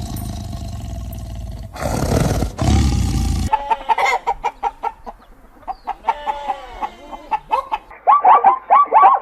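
Chickens clucking: many short, repeated clucks that come in a quick run near the end, after about three seconds of loud, rumbling noise at the start.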